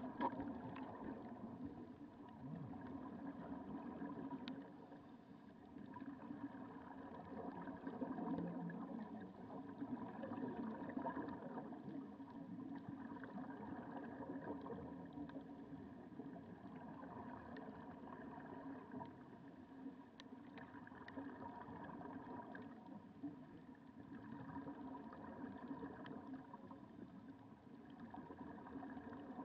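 Underwater sound heard through a waterproof camera housing: a steady muffled rumble with a faint hum in it, and bubbling from the snuba divers' regulators as they exhale.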